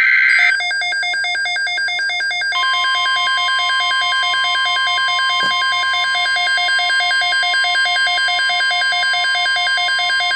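Emergency Alert System alert tones: the last screech of a digital SAME header burst ends about half a second in, and a rapidly pulsing electronic alarm beep takes over. About two and a half seconds in, the steady single-pitched NOAA Weather Radio 1050 Hz warning tone joins the beeping, which stops right at the end.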